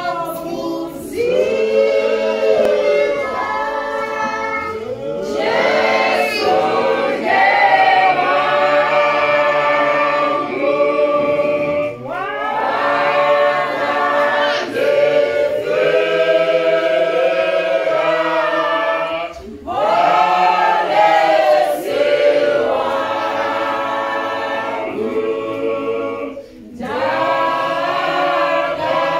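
Mixed men's and women's church choir singing a Shona hymn a cappella in harmony, in long phrases broken by brief pauses for breath.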